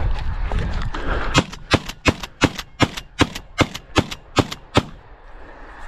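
A shotgun fired in rapid succession, about ten shots at roughly three a second, as a hunter empties his gun into a flock of snow geese he has jumped.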